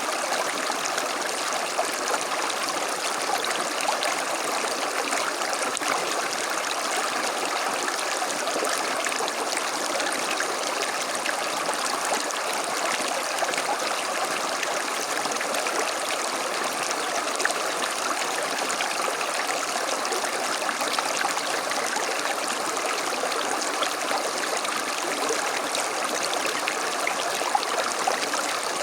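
A creek flowing steadily: a continuous, even rush of running water that holds the same level throughout.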